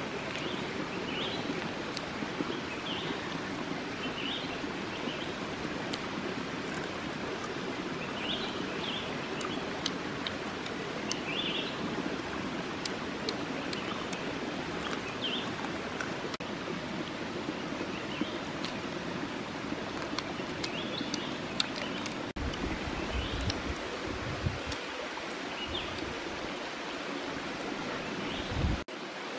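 Shallow stream running over stones, a steady rushing, with short high chirps every second or two and a few low rumbles in the last quarter.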